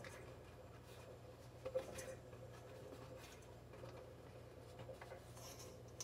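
Fingers rummaging in a plastic dishwasher sump: faint scraping and small clicks as debris is felt for and picked out, with one sharper click just under two seconds in.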